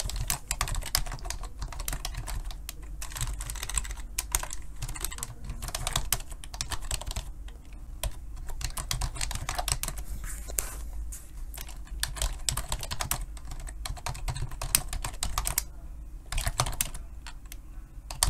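Typing on a computer keyboard: a fast, continuous run of key clicks, with short pauses about seven and a half seconds in and again around sixteen seconds in.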